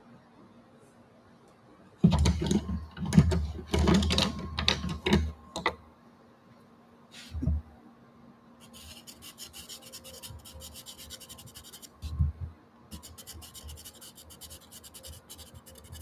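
Pastel pencil scratching on gesso-coated watercolour paper in quick, fine strokes, in two stretches of a few seconds in the second half. Earlier, about two seconds in, comes a louder burst of knocks and rustling lasting some three seconds, with single soft thumps later on.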